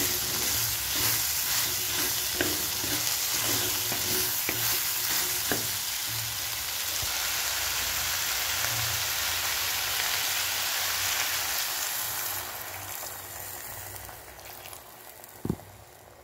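Diced vegetables sizzling in hot oil in a clay pot, stirred with a wooden spatula that scrapes the pot with short strokes in the first half. The sizzle dies down near the end, and one sharp knock follows.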